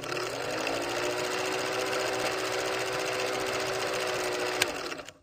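Old film projector sound effect: a fast, even mechanical clatter over a steady motor hum, with a sharp click near the end before it cuts off suddenly.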